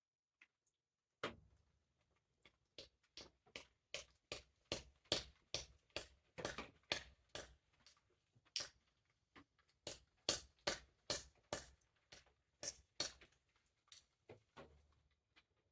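Hammer striking metal over and over, sharp blows about two or three a second with short pauses, starting about a second in: knocking a stuck piece off an ice auger drill bit.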